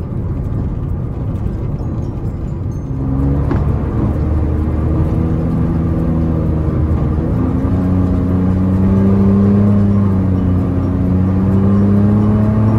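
Mitsubishi Mirage hatchback's engine and exhaust, fitted with a Fujitsubo Authorize R chambered muffler, droning steadily under way. The pitch shifts a few seconds in, then climbs slowly as the car accelerates. The tone is subdued rather than loud.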